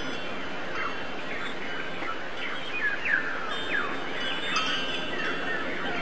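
Many small birds chirping: short, quick, falling chirps that overlap over a steady background hiss.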